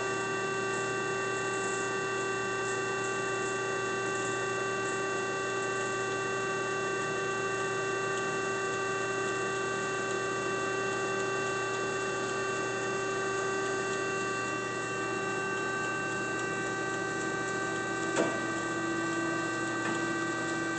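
W.F. Wells F-15 twin-post horizontal band saw running with its blade sped up on the variable speed drive: a steady mechanical hum with several fixed whining tones. About 18 seconds in there is a click and the main tone drops slightly in pitch.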